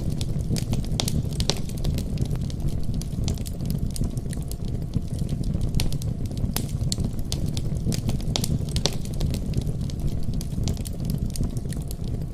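Wood fire burning in a fireplace: a steady low rumble of flame with many sharp, irregular crackles and pops from the burning logs.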